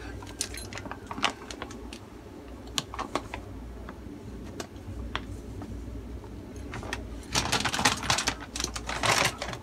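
Flour being spooned out of a plastic bag into a ceramic bowl with a metal spoon: scattered light clicks and taps, then two bursts of crinkling plastic bag near the end.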